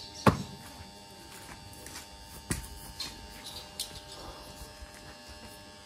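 A steady electrical hum, with a sharp knock just after the start, a second knock about two and a half seconds in, and a few lighter clicks from saddle and tack being handled on a horse.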